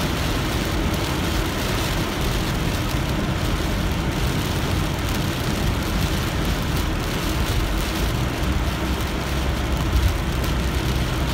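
Car driving on a rain-soaked road in heavy rain, heard from inside the cabin: a steady rush of tyre and road noise with the engine underneath and rain on the car.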